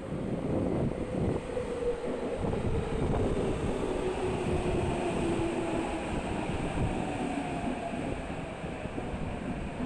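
Tokyo Metro 8000 series train pulling into a station. Its motor whine falls slowly in pitch as it brakes, over a steady rumble of wheels on rail.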